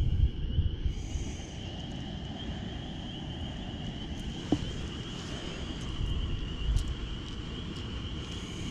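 Outdoor ambience: gusty wind rumbling on the microphone over a steady high-pitched drone, with one sharp click about halfway through.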